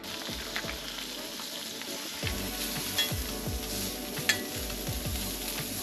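Bison steak sizzling as it fries in a pan, a steady hiss, with two sharp clinks of a utensil against the pan about three and four seconds in.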